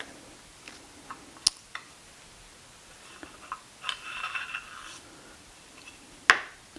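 Steel iron of a wooden beading plane being worked loose in the plane body: light clicks and taps, a scraping rub for about a second near the middle, then a sharp click near the end as the iron is lifted out.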